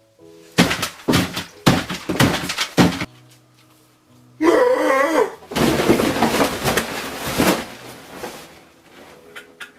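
Background music with held notes under a run of loud noisy thunks and crashes in the first three seconds. A brief wavering cry comes about four and a half seconds in, then about two seconds of dense crunching noise.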